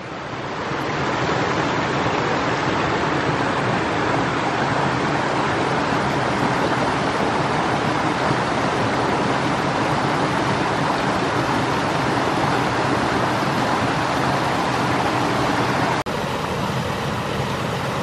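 Steady, loud rush of water cascading over rocks, swelling up over the first second. It breaks off briefly about sixteen seconds in and resumes slightly quieter.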